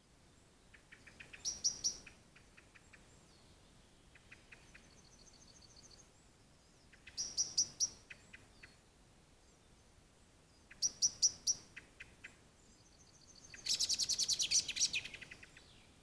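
A songbird singing in short bursts, each a rapid run of high notes: four phrases, the last one longest and loudest near the end. Fainter runs of notes from another bird come in between.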